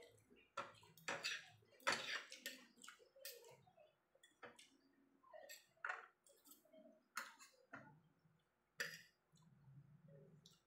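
Metal fork and spoon tapping and scraping on a ceramic plate, in irregular sharp clinks.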